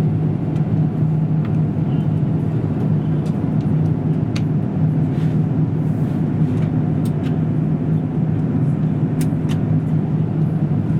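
Steady drone of an Airbus A350's Rolls-Royce Trent XWB engines and airflow heard inside the cabin, with a constant low hum and a few faint ticks.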